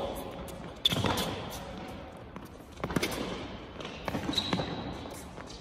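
Tennis rally on an indoor court: sharp racket-on-ball hits about two seconds apart, each echoing in the hall, with lighter knocks between them.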